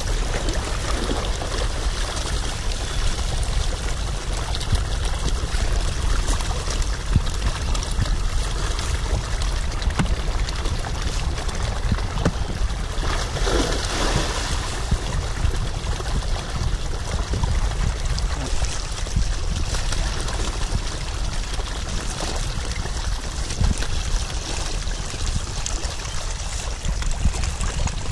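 Dense crowd of catfish and tilapia splashing and churning at the surface of a pond in a feeding frenzy, a steady watery splashing that swells about halfway through as a handful of feed pellets is thrown in.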